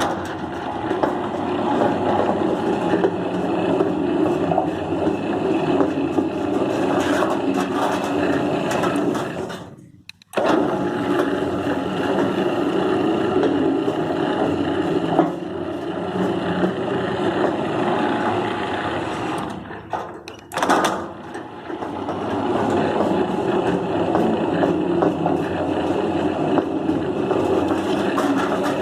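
Rossi electronic gate opener's worm-gear motor running steadily, driving the gate through its pinion; it stops about ten seconds in and restarts almost at once, then cuts out briefly again around twenty seconds with a short burst before running on. It now starts and runs under power after its start capacitor was replaced, which the owner says fixed it.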